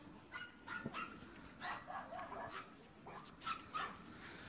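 Dogs barking and yipping in a string of short calls, repeated irregularly every half second to a second.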